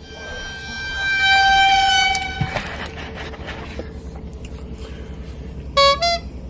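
A loud, steady horn-like tone that lasts about two seconds, followed near the end by two short toots.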